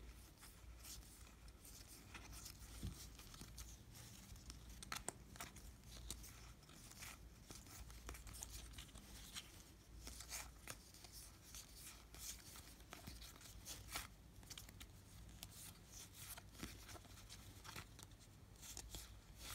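Faint rustling and crinkling of a foil trading-card pack being opened, with the soft slide and click of baseball cards handled one against another, in many small scattered strokes.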